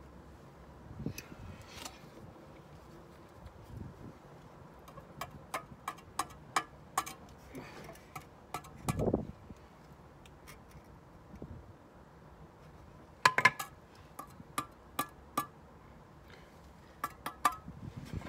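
Bricklaying trowel tapping freshly laid bricks and an air brick down into their mortar bed to bring them level, making runs of sharp clinks with a short ring. One duller knock comes about nine seconds in.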